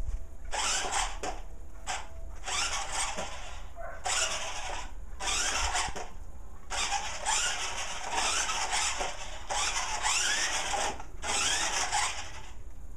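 Electric drive motor and tracks of a small tracked RC car whirring in short bursts with brief stops as it is driven back and forth on carpet, the pitch rising within some bursts. Near the end the car rears up onto its end.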